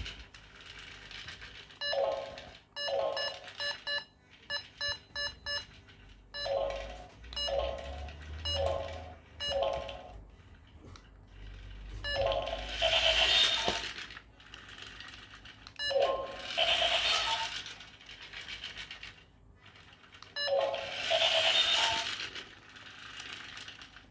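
Silverlit Macrobot toy robot playing its electronic sound effects through a small speaker: a series of short falling tones and rapid beeps, broken by three louder noisy bursts.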